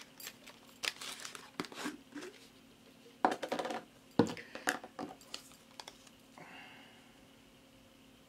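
Handling noises at a craft table: a scatter of light clicks and knocks with some rustle as a plastic jar of Mod Podge is opened, its lid set down and a brush dipped in. The knocks come thickest about three to four seconds in, the loudest just after four seconds, and die away after about six seconds.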